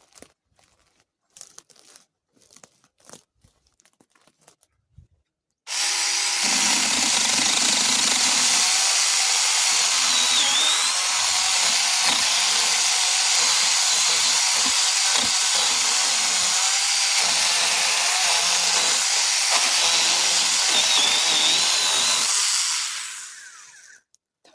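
A handheld power cutting tool, used on an overgrown bush, starts abruptly about six seconds in, runs loud and steady for some sixteen seconds, then winds down and stops near the end. Before it, a few faint clicks and rustles.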